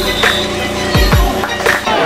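Background music with a steady beat of about two hits a second and a deep bass note sliding down about a second in.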